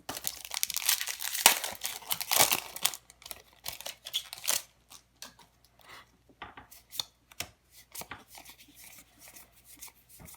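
Foil wrapper of a Magic: The Gathering set booster pack being torn open and crinkled for about three seconds, followed by scattered light clicks and rustles of cards being handled.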